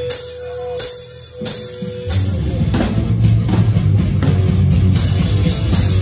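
Live hardcore punk band. A few separate hits sound over a held steady tone, then at about two seconds the whole band comes in loud with guitars and drums.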